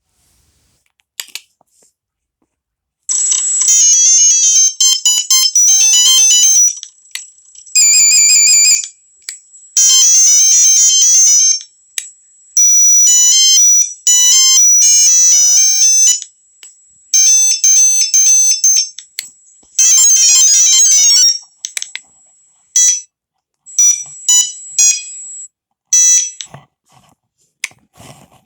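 Nokia 3320 mobile phone playing one built-in monophonic ringtone after another: short, high, beeping melodies of a few seconds each, separated by brief pauses. Near the end there are only short single beeps.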